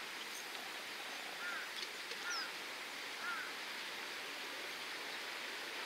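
Steady hiss of sea and wind at the water's edge, with a few short bird calls, about one and a half, two and three seconds in.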